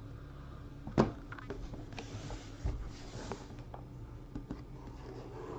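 Trading cards being handled: a sharp click about a second in, then a soft sliding hiss and light scattered ticks over a low steady hum.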